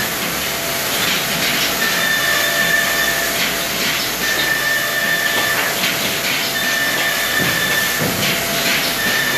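Woodworking machinery in a particle-board panel shop running steadily: a loud constant hiss with a high whine that comes in for about a second and a half roughly every two and a half seconds, four times.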